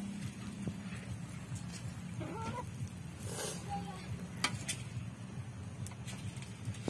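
A metal spatula scraping and clacking against a wok as noodles and cabbage are tossed, with a few sharp clacks about four and a half seconds in. A chicken clucks a couple of times in the middle.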